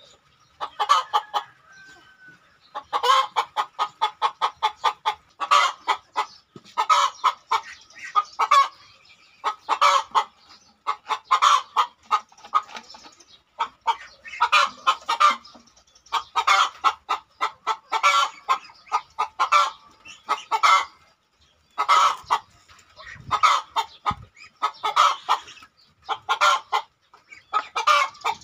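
Chickens clucking in quick runs of clucks, one run after another.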